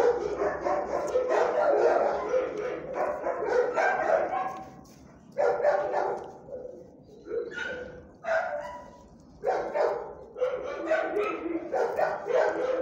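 A dog vocalizing in repeated bouts about a second long, with short gaps between them.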